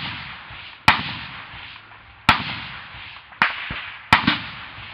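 Single gunshots in a firefight: four sharp shots at uneven intervals, roughly a second apart, each echoing away before the next.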